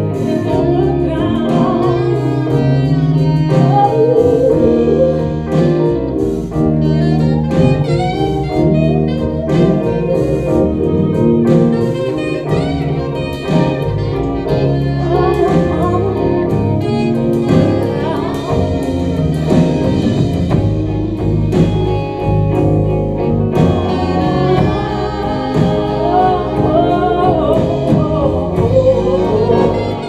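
Live jazz band music: a soprano saxophone plays a winding solo melody over the band's accompaniment.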